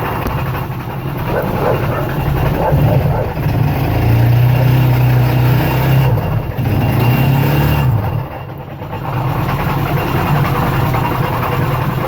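GY6 scooter engine running and twice revved with the throttle, then dropping back to idle about eight seconds in, with a grinding noise that the owner suspects comes from the variator or a crank bearing.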